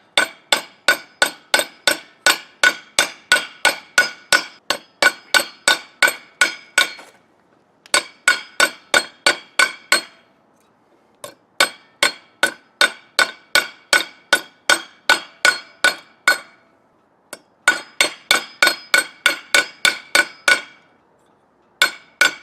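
Hammer forging a red-hot steel drill bit flat on metal: sharp, ringing strikes about three a second, in runs of several seconds broken by short pauses.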